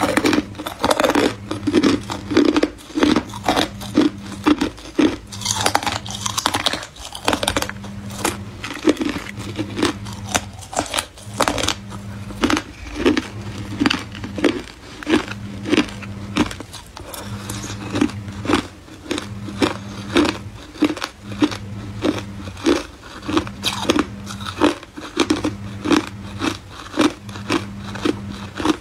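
Hard ice cubes being bitten and chewed, a steady run of sharp crunches at about two a second, with a low hum underneath.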